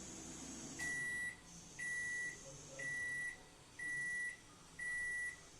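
Household appliance's electronic beeper sounding five times, one steady high beep about every second. A low hum stops just as the beeping begins.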